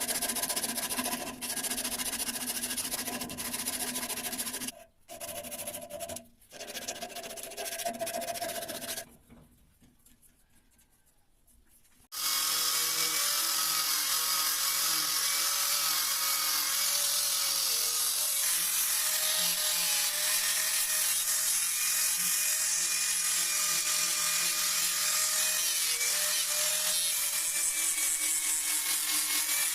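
A power tool running steadily from about twelve seconds in. Before that come shorter stretches of tool work broken by abrupt cuts and a few seconds of near quiet.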